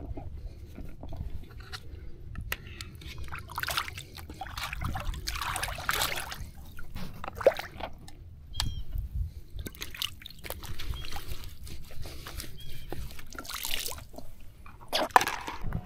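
Water sloshing and trickling in irregular spurts, with a few sharp clicks and knocks in between.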